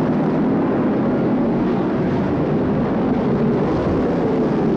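Formula 5000 racing cars' 5-litre V8 engines running hard together, several engines at once in a loud, steady mass of engine noise.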